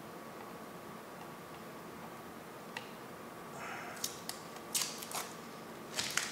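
Protective plastic film being peeled and picked off an EVGA GTX 1080 Ti FTW3 Hybrid graphics card: quiet at first, then a few short, sharp crinkles and clicks from about halfway in, bunched together near the end.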